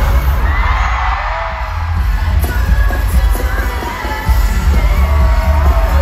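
Loud live pop concert music over a stadium sound system, with singing and the crowd cheering. The heavy bass beat eases off about a second in and comes back strongly about four seconds in.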